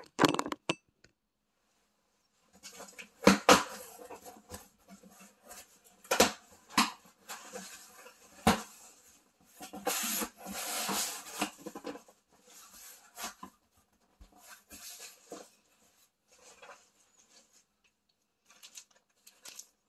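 A cardboard shipping box being opened by hand: tape being pulled and torn off the lid, the flaps scraping and rustling, and irregular knocks and crinkles as the contents are handled, loudest in a few sharp bursts and a longer stretch about halfway through.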